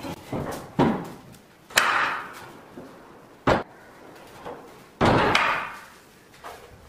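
Wooden double doors knocking and banging as they are handled and opened: several separate sharp knocks and thuds spread over a few seconds.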